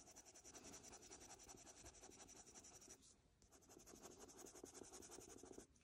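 Faint, rapid scratching of a coloured pencil shading on paper, with a brief pause about halfway through before the strokes resume.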